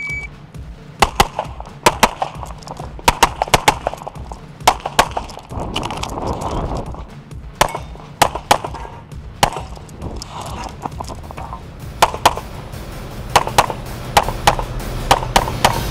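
A shot timer beeps once, and then a CZ Shadow pistol fires about two dozen shots through a practical-shooting course, mostly in quick pairs, with short gaps between the bursts. Music plays faintly beneath.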